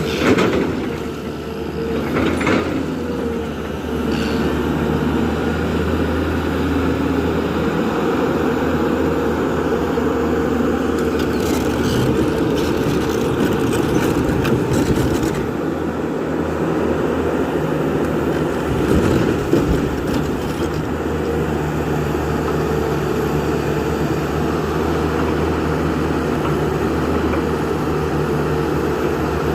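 Diesel engine of a JCB 3DX backhoe loader running steadily while working, with a few short knocks about halfway through.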